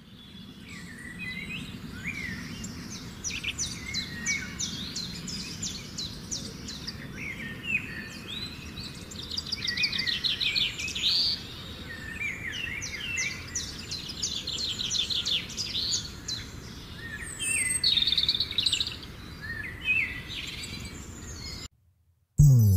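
Birds singing: many overlapping chirps, rapid trills and short whistles over a steady low rumble. The birdsong cuts off suddenly near the end, and music starts just after.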